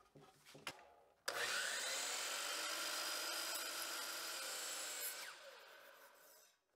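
DeWalt sliding miter saw starting up about a second in and cutting through a wide solid maple board, a steady sawing sound for about four seconds. Then the trigger is released and the blade winds down, falling in pitch and fading.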